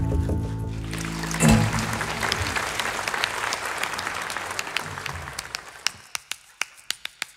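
The band's last chord rings out in the first second or so, then a concert audience applauds; the applause steadily dies away to a few scattered single claps near the end.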